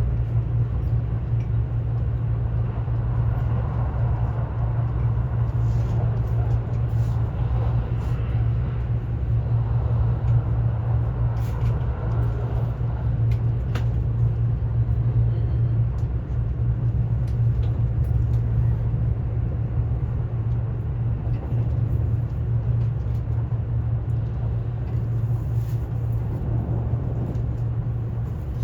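Running noise of a Kintetsu ACE 22000-series limited express train heard from inside the car: a steady deep rumble and hum of wheels on rail, with occasional faint clicks.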